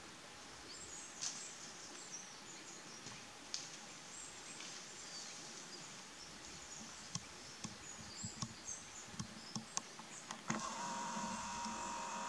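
Quiet woodland ambience with a few faint bird chirps and scattered light clicks and snaps. About ten seconds in, a steady mechanical whine starts abruptly: the camcorder's zoom motor zooming out.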